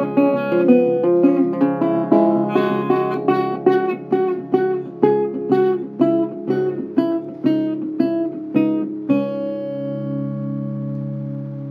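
Instrumental music: an acoustic guitar picking quick single notes, then about nine seconds in a chord is struck and left to ring out, slowly fading.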